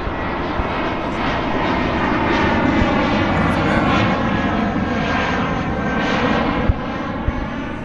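Airplane flying by, its engine noise a steady, continuous drone.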